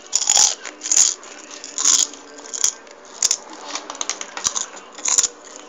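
A hand rummaging through a plastic bowl of small plastic toy figures and chips, giving sharp irregular bursts of rattling and crinkling, about seven in all.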